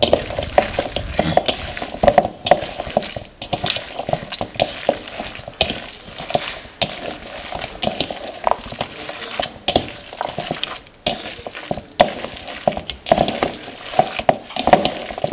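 Raw minced meat with chopped onion and spices being squeezed and kneaded by hand: irregular wet squelching and squishing.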